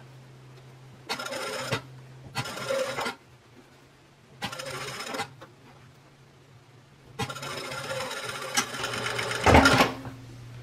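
Juki industrial sewing machine stitching a seam in short starts and stops: three brief runs of under a second each, then a longer run of about two and a half seconds. The long run ends in a loud thump as the machine stops. A steady low hum runs underneath.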